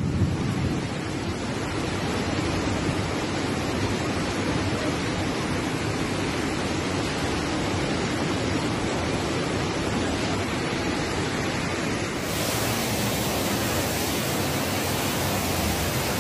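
Floodwater rushing in a torrent, a steady loud rush of noise. About twelve seconds in it turns brighter and hissier.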